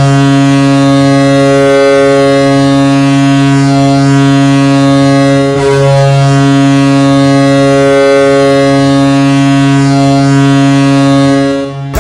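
Toronto Maple Leafs goal horn, a big arena air horn, sounding one long steady blast to mark a goal. It is held for about twelve seconds and cuts off near the end.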